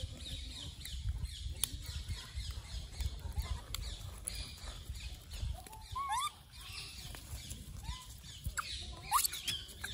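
Outdoor animal sounds: small birds chirping in quick repeated high notes, then a few short squeaky calls in the second half that bend up and down in pitch. A low rumble runs underneath.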